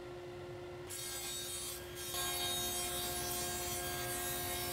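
SawStop table saw running with a two-blade Amana Tool Prestige dado stack, cutting quarter-inch dados across plywood: a steady hum with a hissing cut that comes in just under a second in and grows louder about two seconds in.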